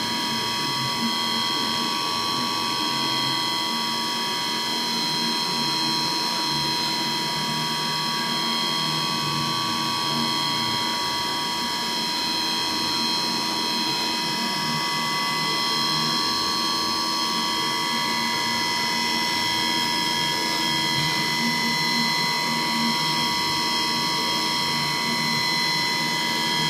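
CNC milling machine cutting, a steady high-pitched whine made of several held tones over a rough mechanical rattle, level and unbroken.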